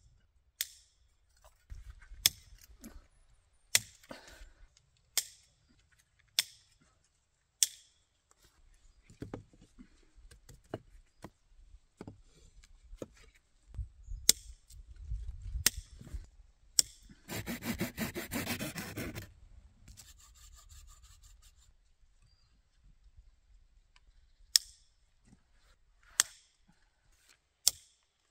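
Sharp knocks on wood, spaced a second or so apart in runs with pauses between them, as when wood is chopped. About two-thirds of the way through comes a rasping scrape lasting about two seconds.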